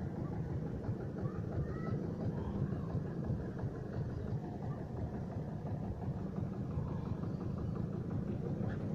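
Steady low outdoor rumble, with a few faint short high chirps above it.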